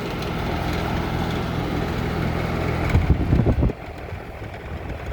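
Outdoor HVAC condenser unit running with a steady low hum, back in operation on a new run capacitor. About three seconds in comes a short loud rumble, after which the hum is quieter.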